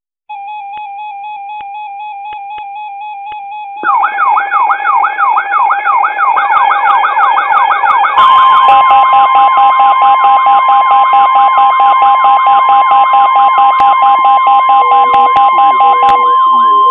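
Several weather alert radios sound their alarms together for a severe thunderstorm warning from the National Weather Service in Milwaukee/Sullivan. First comes a warbling electronic tone. About four seconds in, layered, rapidly repeating sweeping chirps join it. About eight seconds in, the steady NOAA Weather Radio 1050 Hz alert tone starts and holds for about nine seconds, to just before the voice announcement.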